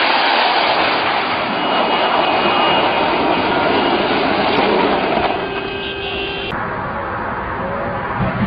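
Loud, continuous vehicle noise with no clear engine pitch, changing abruptly about six and a half seconds in.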